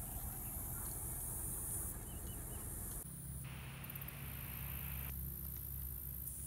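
Outdoor garden ambience: insects such as crickets trilling steadily at a high pitch over a low background rumble.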